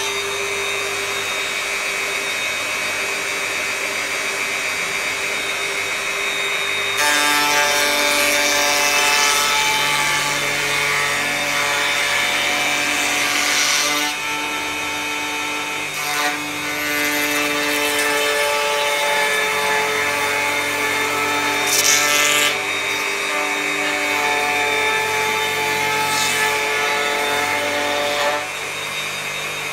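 Electric planer in a sliding jig, running and cutting wood while it is pushed across a board. The motor whine holds steady, and the pitch and load shift several times as the cut changes.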